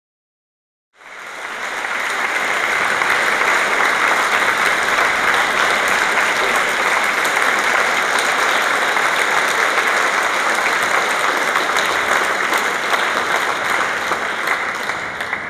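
Audience applauding in a concert hall: dense, steady clapping that starts about a second in and begins to die down near the end.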